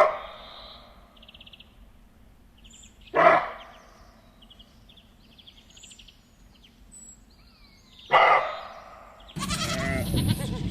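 An animal bleating: three short, loud calls, the first at the start, the next about three seconds later and the last about five seconds after that, with faint chirping between. Near the end a louder, continuous mix of sound takes over.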